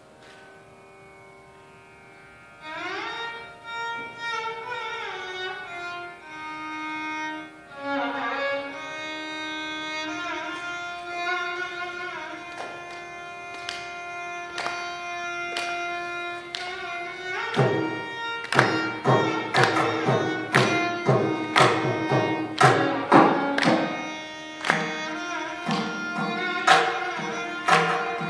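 Carnatic violin playing a slow melody with gliding, ornamented notes, entering a couple of seconds in. About two-thirds of the way through, a mridangam joins with quick, crisp strokes under the violin.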